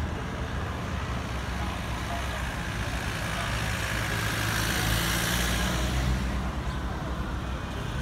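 Road traffic: a motor vehicle passes close by, its engine hum and tyre noise swelling to a peak about five seconds in and then fading.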